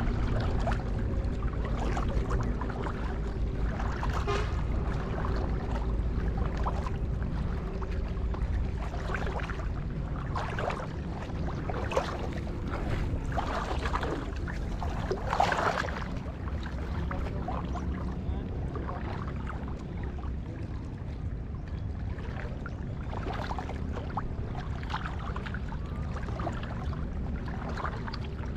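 Small boat's motor running steadily underway, a low hum with wind and water noise over it and scattered splashes and knocks.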